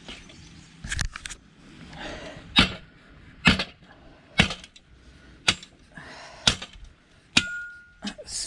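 A series of sharp metal knocks, about one a second, from scrap being struck while it is broken down. One knock near the end leaves a short ringing tone.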